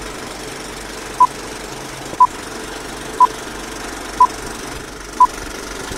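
Old film-leader countdown sound effect: a short high beep once a second, five times, over the steady rattle of a film projector running.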